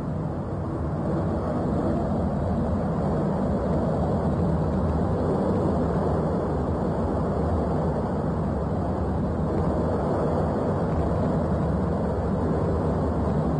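Steady low rumbling roar of a volcanic eruption, even and unbroken, with no distinct tones.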